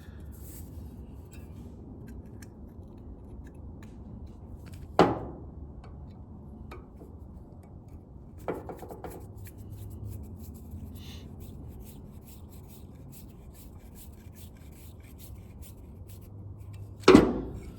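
Hand work on a truck door handle being screwed back together: quiet rubbing and scraping of small metal parts with light clicks, and three sharp knocks, about five seconds in, about eight seconds in, and the loudest near the end. A low steady hum runs underneath.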